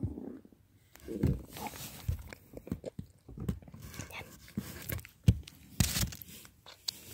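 Irregular soft knocks and rustles from a phone being handled and jostled against clothing and cardboard inside a box, with a louder rustle near the end.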